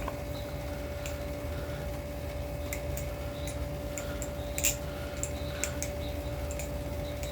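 Scattered light clicks at uneven intervals, one louder about four and a half seconds in, typical of a balisong knife's handles clacking as it is flipped, over a steady low hum.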